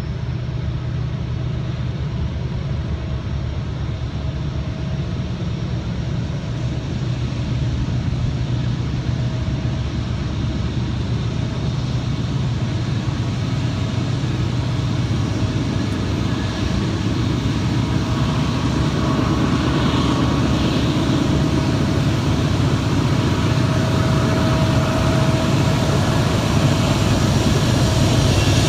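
Diesel locomotive engines of an approaching train: a steady low drone with a faint steady higher tone above it, slowly growing louder as the train nears.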